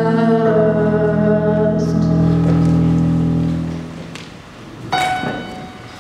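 A girl singing a held note into a microphone over sustained electric keyboard chords, both fading away about four seconds in. Then single piano-like keyboard notes are struck about once a second.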